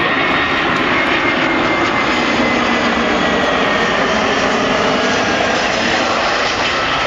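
Airbus A320-214's CFM56 turbofan engines at approach power as the airliner passes low and flares for landing: a loud, steady rushing noise with a faint high whine sliding slowly down in pitch.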